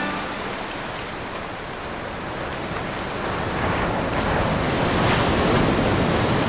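Ocean surf: a wave building and breaking as a rushing noise that swells louder in the second half.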